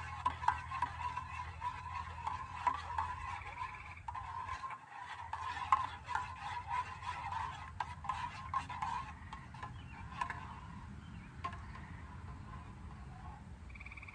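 Metal spoon stirring hot chocolate in a metal canteen cup: an irregular run of light clinks and scrapes against the cup's sides that stops about ten seconds in.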